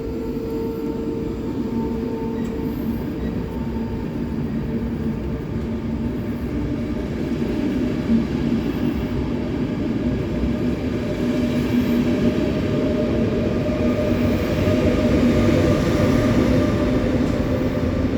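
Electric train running through the station with a steady rumble and a motor hum, growing gradually louder and easing off slightly near the end.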